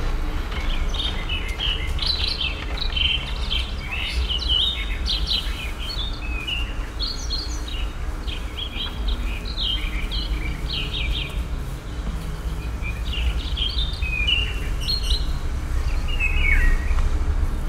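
Birds chirping and singing in many short, quick high calls, over a steady low rumble.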